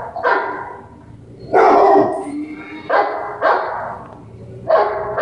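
Dogs barking back and forth: a pet dog barking at dogs barking on a television, about five separate barks, the loudest and longest about one and a half seconds in.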